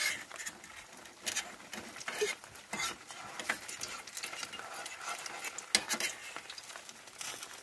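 A patty frying in hot oil in a pan, sizzling with irregular sharp crackles and pops; the loudest pop comes about three quarters of the way through.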